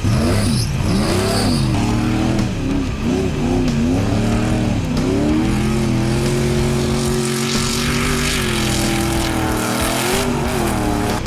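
Off-road race truck engine revving hard, its pitch rising and falling with throttle and gear changes, then holding a steady pitch for several seconds before dipping and climbing again near the end.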